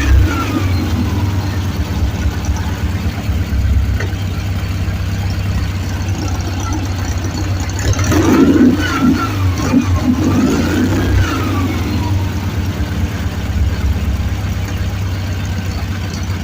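Volkswagen engine running on LPG, idling steadily, with a few quick rises and falls in revs about eight to eleven seconds in.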